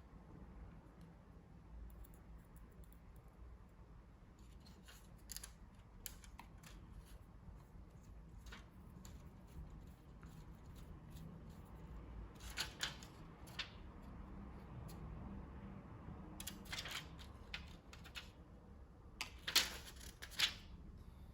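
Scattered light clicks and snaps of hands handling small laptop parts, louder and sharper clicks in the second half, over a faint low hum.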